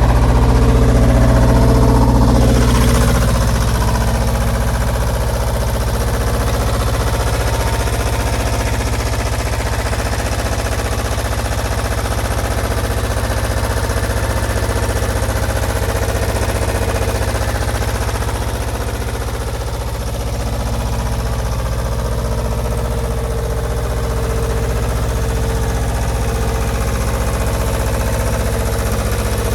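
Two-cylinder Deutz D2011L02 diesel engine of an Atlas Copco XAS 57 DD portable air compressor running steadily with a rhythmic knock, a little louder for the first three seconds and then settling to an even run.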